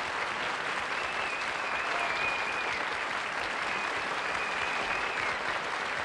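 Studio audience applauding steadily, a dense, even clapping, with a thin, high, wavering tone heard above it twice.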